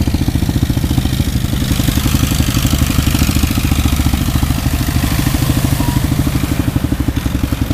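Eight-wheeled amphibious ATV's engine running steadily while its tyres paddle and churn through pond water; the splashing swells as it passes close, from about two seconds in until near the end.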